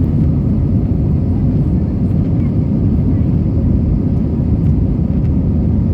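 Airbus A320 jet engines running at takeoff power: a loud, steady, deep rumble.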